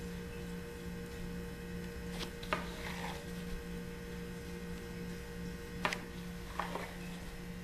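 Steady electrical hum, with a few light taps and brushing sounds as a gloved hand handles a baked cake layer on a metal tray.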